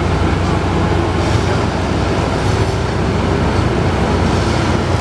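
Railway track-maintenance machine working on the track: a steady, loud diesel engine drone with mechanical clatter and noise over it.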